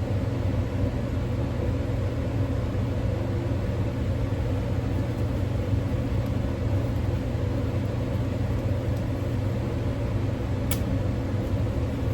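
Steady low mechanical hum of a running motor, with a short click near the end.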